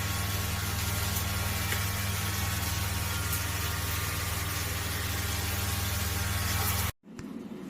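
A small electric motor hums steadily and loudly at one even pitch, then cuts off abruptly near the end.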